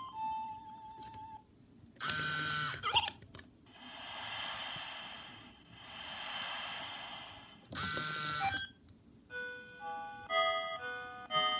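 Sega Japanese I-Dog robot dog playing its electronic sick-mood sounds through its speaker: a short beep, a bending synthesized cry, two long hissing swells that rise and fall, another cry, then a simple beeping tune of short notes from about nine seconds in.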